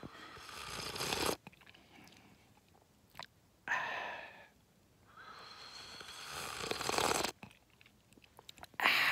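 Loud slurping sips from a mug held close to the mouth: several slurps, each building up and cutting off sharply, with short pauses between.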